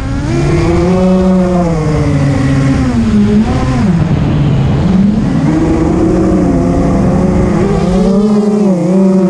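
A 250-size FPV quadcopter's electric motors and propellers whining in flight. The pitch rises and falls with the throttle, dipping low about four seconds in, climbing again, and dipping briefly near the end.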